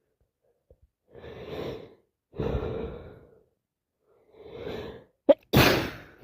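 A woman sneezing from a cold with allergies: three gasping in-breaths build up, then a loud, sudden sneeze bursts out near the end.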